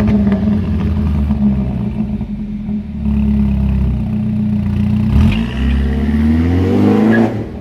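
BMW 430 Cabrio engine heard through its tuned exhaust, running steadily at raised revs. About five seconds in it is revved, the note climbing for two seconds before falling back sharply near the end.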